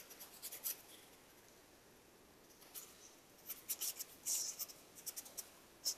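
Felt-tip marker strokes scratching faintly on paper: a few short strokes about half a second in, then a quick run of strokes from about three and a half seconds on.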